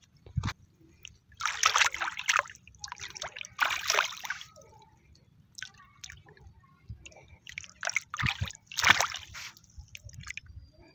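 Splashing and sloshing in shallow water as a long waterlogged driftwood log is moved and pushed down to test whether it sinks. It comes in several uneven bursts a few seconds apart; the log still floats.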